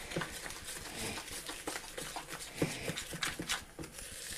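Spoon stirring and scraping wet ginger nut biscuit crumbs, bound with melted butter and sugar, around a plastic mixing bowl: an irregular run of short scrapes and soft knocks.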